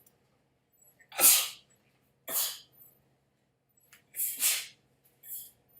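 A woman sneezing several times in quick succession. The loudest sneeze comes about a second in, followed by another, a close double sneeze and a smaller one near the end.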